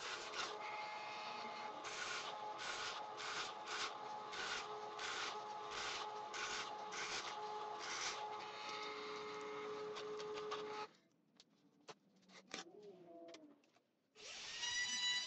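Drill press running with a large Forstner bit boring into plywood: a steady motor hum under a rasping cut, about two strokes a second as the bit is fed in. It stops about eleven seconds in.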